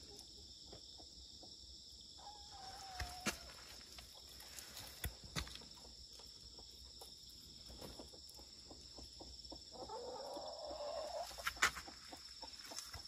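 Chickens vocalising: a drawn-out falling call about two seconds in, and a longer stretch of clucking around ten seconds in. Scattered light clicks and a steady high-pitched hum run underneath.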